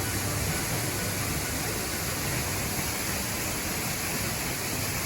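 Yoro Falls waterfall: the steady, even rush of falling water close by.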